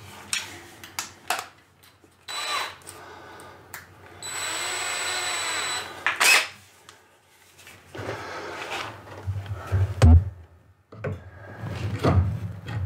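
Cordless drill running in short spells with a steady whine, the longest about a second and a half near the middle, drilling out a hole in an epoxy-coated model-airplane firewall. Knocks and handling noise follow, with a hard thump about ten seconds in.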